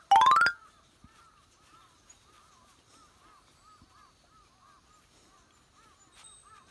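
A brief loud rising tone at the very start, followed by faint, evenly repeated bird calls about twice a second.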